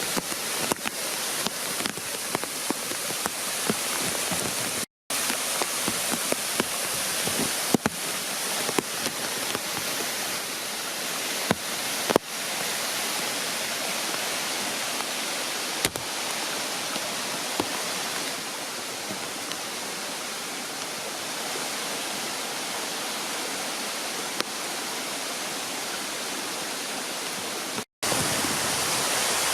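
Waterfall: a steady rush of falling water with scattered sharp clicks. It cuts out completely for an instant twice, about five seconds in and near the end, at splices in the edit.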